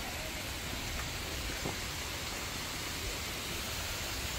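Steady, even rushing noise with some low rumble, and one faint knock about one and a half seconds in.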